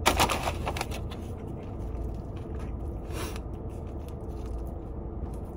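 Eating by hand from a molded-fiber takeout bowl: a rustle and scrape as food is picked from the bowl at the start and again briefly about three seconds in, over a steady low hum.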